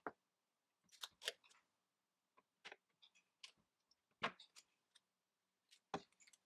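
Scattered sharp clicks and taps from hands working with a snap-off box knife, packing tape and cardboard pieces on a wooden board. There are about seven separate ticks, the loudest a little past four seconds in, with near silence between them.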